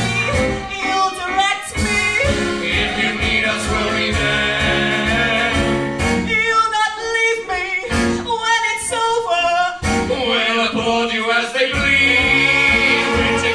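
A musical-theatre song: singing voices over instrumental accompaniment.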